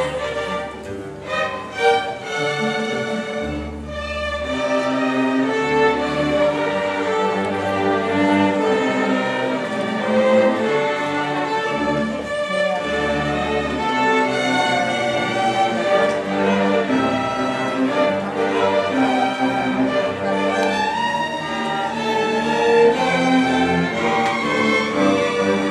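A school string orchestra playing: violins, cellos and double basses bowing together, with the double basses sounding low notes through the first half.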